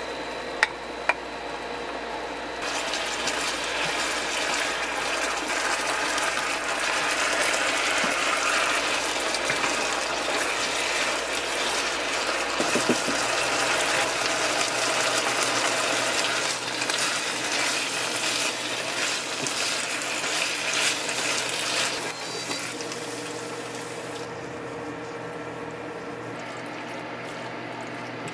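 Pork and vegetables sizzling in a frying pan while a wooden spoon stirs them, with a few knocks of the spoon against the pan. The sizzle comes in loud a few seconds in and eases to a quieter hiss near the end.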